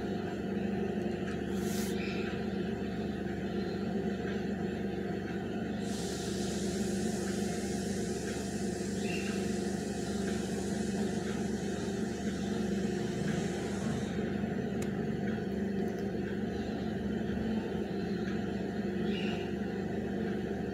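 Steady low machine hum of even loudness, with a band of hiss that comes in suddenly about a quarter of the way through and stops just as suddenly after about eight seconds. A few faint ticks are heard along the way.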